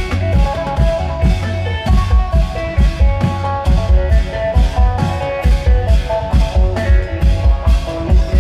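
Isan long-drum (klong yao) procession band playing: a steady, fast, driving drum beat with a plucked-string melody line over it, loud and amplified.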